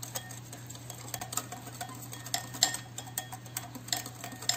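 Metal wire whisk beating a thin liquid batter in a glass bowl, the wires clicking irregularly against the glass several times a second.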